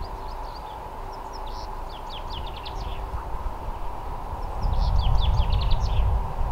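Common chaffinch singing two song phrases, each a quick run of falling notes, about a second in and again about four and a half seconds in. A low rumble rises under the second phrase, over a steady faint hum.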